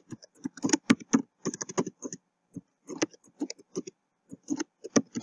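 Computer keyboard being typed on: irregular keystrokes in quick short runs with brief pauses between them.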